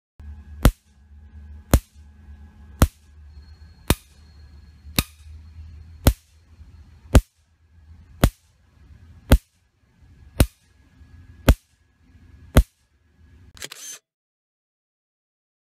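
Electric fence charger (1 joule, 10,000 volts) firing its pulses through Shockline coated fence wire, each pulse arcing about four and a half inches to a grounded steel vise with a sharp snap. The snaps come about once a second, twelve in all, over a low hum, with a short rougher burst near the end.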